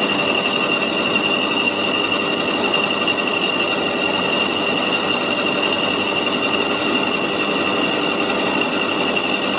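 Electric garden branch shredder with a roller (milling) cutter running empty, with no branch in it: a steady motor hum with a high whine.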